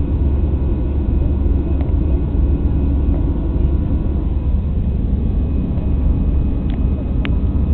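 Airbus A320 cabin noise in flight: the steady low rumble of the jet engines and airflow, with faint steady whining tones over it. Two faint clicks near the end.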